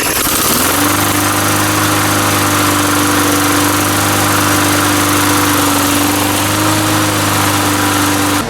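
Tecumseh single-cylinder lawn mower engine speeding up in the first second, then running steadily at full throttle, where it settles on its own with no idle setting. It runs well after a carburettor swap and tune-up, with the oil it had been flooded with burned off.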